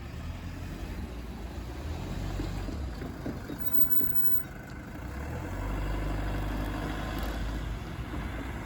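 A deep vehicle rumble passing close by, swelling twice, with a few light clicks near the middle.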